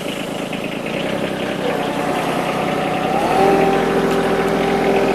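Yanmar diesel tractor engine running, throttled up about three seconds in to a higher steady speed.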